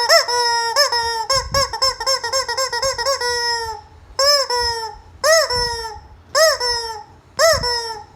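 Squeaky rubber chicken toy being squeezed again and again. It starts with a fast run of short squawks for about three and a half seconds, then gives four separate longer squawks about a second apart, each bending up in pitch and falling away.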